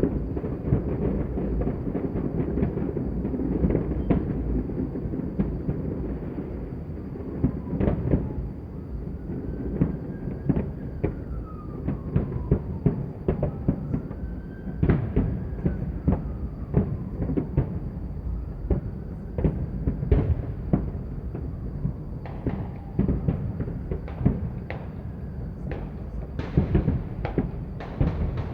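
Many fireworks and firecrackers going off at once: a constant rumble of distant bangs, frequent sharp cracks from closer by, and faint tones gliding up and down in pitch.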